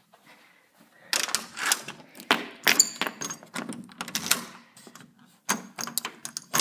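A door's chain lock and brass knob being worked: a run of sharp metal clicks and rattles starting about a second in, as the door is unlocked and opened.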